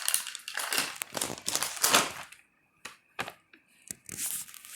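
Plastic treat packaging crinkling as it is handled, in irregular bursts with a few sharp clicks.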